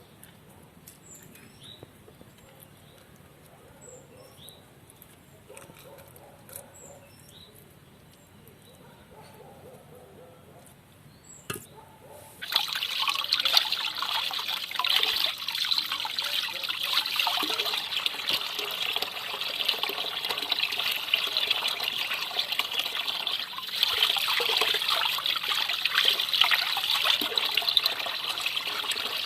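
Water poured or running in a steady stream, starting suddenly about twelve seconds in, as fish is rinsed; before that only a faint quiet background.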